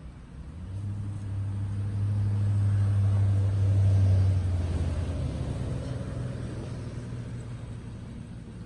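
A motor vehicle passing by: a low engine hum that builds over the first few seconds, is loudest about four seconds in, then fades away.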